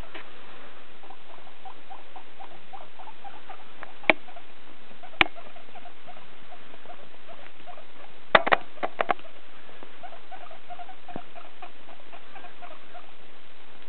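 Guinea pig making spells of quick, soft, low chirping sounds, several a second, with a few sharp clicks, the loudest cluster of them about eight to nine seconds in.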